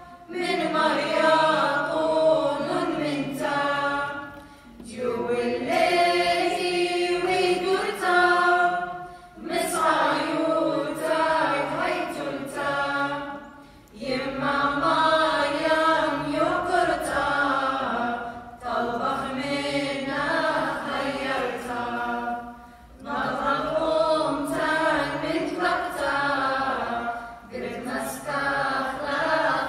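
Small mixed choir singing an Assyrian Church of the East hymn a cappella, in sung phrases of about four to five seconds with short breaks between them.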